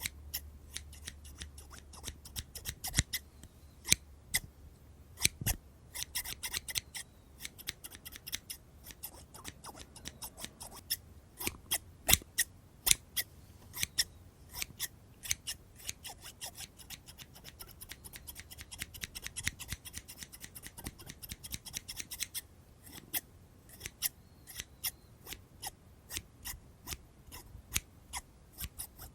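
Scissors snipping repeatedly at close range: quick runs of crisp snips alternating with single, louder cuts and short pauses.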